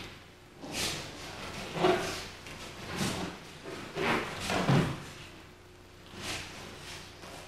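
Thumps and slaps of bodies hitting the mat as aikido partners are thrown and breakfall, about six in all, roughly a second apart, with the heaviest landing a little past the middle.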